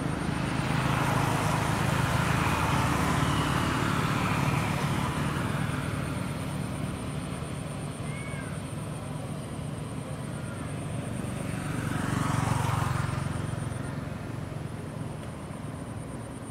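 Engine noise of a passing motor vehicle or aircraft, a low rumble that swells and fades twice, loudest over the first few seconds and again about twelve seconds in.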